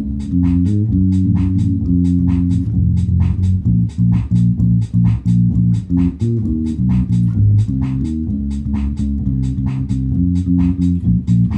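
Bass guitar played in a steady run of plucked low notes, a few to the second, each with a sharp click at its start.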